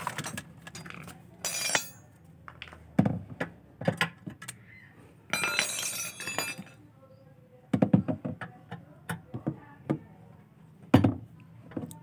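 Metal hand tools clinking and knocking against washing-machine parts as a bolt under the tub is loosened with a wrench and screwdriver. Scattered sharp clicks and knocks, with a short ringing metallic clatter about a second and a half in and a longer one around the middle.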